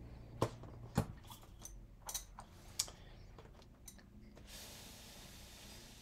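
A few sharp clicks and knocks as an acrylic stamp block and card stock are handled on a craft desk, then, about four and a half seconds in, a soft steady hiss of breath blown onto the freshly stamped card to dry the StazOn solvent ink.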